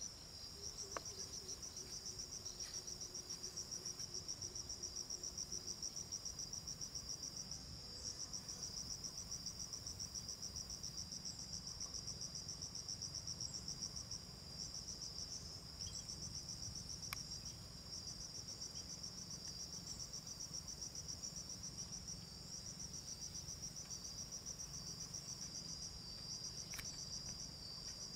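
An insect's high-pitched call, a fast pulsing trill that goes on steadily and breaks off briefly a few times.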